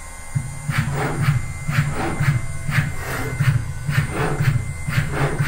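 PrintNC CNC router running a drill cycle: the Z-axis servo drives the spindle down and up in quick, repeated strokes, about two a second, over the steady whine of the running spindle.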